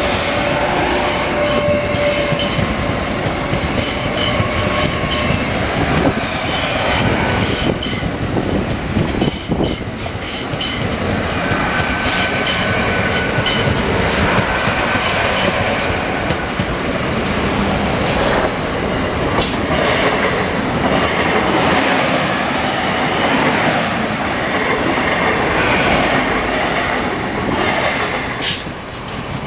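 Great Western Railway Intercity Express Train passing close at speed over a level crossing, its wheels clacking over the rails with a steady rumble and brief squeals.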